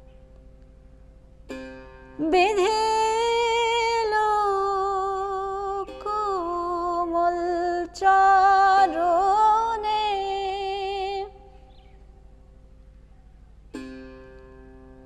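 A woman singing a Baul devotional song, holding long wavering notes that slide between pitches, with a one-stringed ektara plucked under it. The string is plucked once just before the voice comes in, the singing stops about eleven seconds in, and a single ektara pluck sounds near the end.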